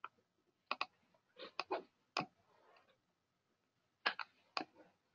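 Faint clicks of a computer mouse, about ten of them, in loose groups and quick pairs, as the map is zoomed in.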